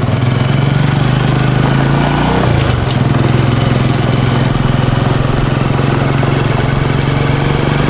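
Small motorcycle engine running steadily while riding, with a brief change in its note about two and a half seconds in.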